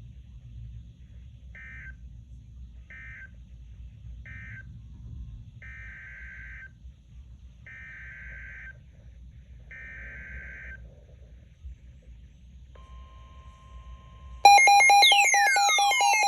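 NOAA Weather Radio SAME digital data bursts, warbling two-tone chirps: three short end-of-message bursts, then three longer header bursts that announce a new warning. A steady single tone follows near the end, and about a second and a half later a much louder electronic sound with falling sweeps cuts in.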